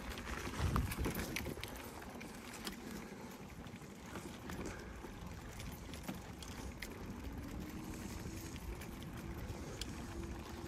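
Bicycle ridden over a dirt path and onto a paving-stone car park: a steady low rumble of tyres with scattered clicks and rattles. A faint steady hum comes in near the end.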